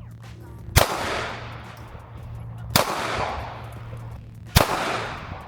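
Three gunshots about two seconds apart, each followed by a long echoing tail.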